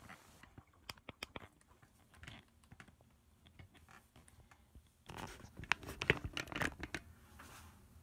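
A phone handled close to its microphone: scattered clicks and taps, then a louder stretch of rustling and scraping about five seconds in.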